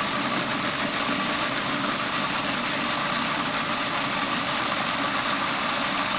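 Countertop food processor motor running steadily with a faint high whine, its blade pureeing chopped strawberries, onion, garlic and chipotle into a vinaigrette base.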